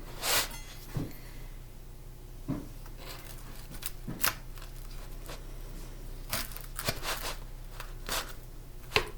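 Big kitchen knife cutting through a crunchy baked crescent-roll crust: a string of short, irregular crunching strokes.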